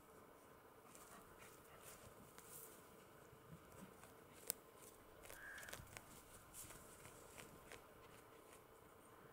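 Near silence, with faint scratching and ticks of two dachshunds digging in soil at a burrow and one sharper click about four and a half seconds in.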